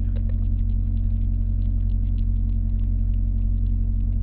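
Steady low hum of an idling truck engine, with many faint quick clicks scattered over it.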